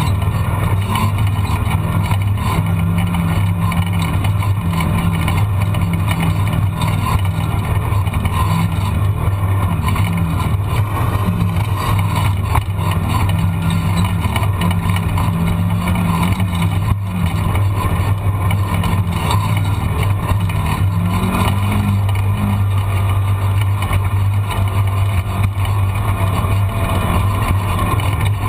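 A vehicle engine running steadily at a near-constant speed, with a slight rise in pitch about three-quarters of the way through.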